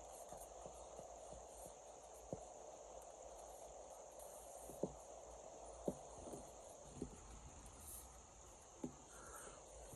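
Faint steady hiss with about five light, sharp clicks spread irregularly through it.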